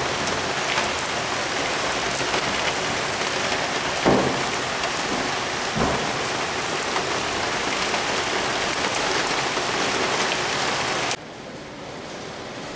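Heavy thunderstorm rain pouring with a steady hiss, broken by two short low thumps about four and six seconds in. Near the end it cuts suddenly to quieter rain.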